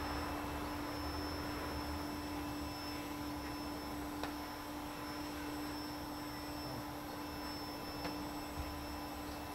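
A steady electrical hum holding one pitch, with a few faint clicks about four seconds in and near the end.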